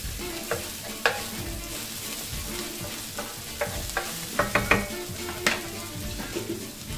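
Diced onion sizzling in olive oil in a nonstick electric skillet at 350°F, stirred with a wooden spoon that knocks and scrapes against the pan now and then, with a quick run of taps about four and a half seconds in.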